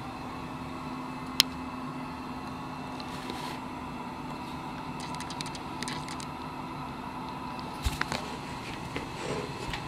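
Harbor Freight mini wood lathe running with a steady motor hum as it spins a square wood blank held in a chuck. A sharp click comes about a second and a half in, and a few lighter clicks come near the end.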